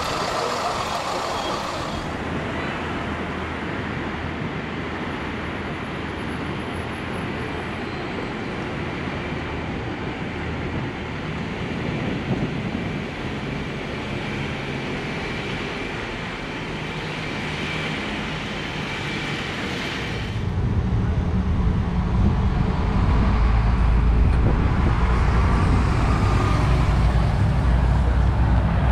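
Open-top double-decker bus engines and passing road traffic. The engines run steadily, and a louder, deeper engine rumble comes in from about twenty seconds in.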